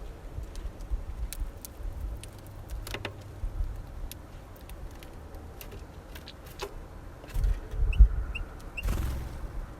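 Small finches at a seed feeder: scattered sharp clicks and taps of beaks and feet on seeds and feeder, with three short high chirps near the end. A low rumble runs underneath and grows louder in the second half.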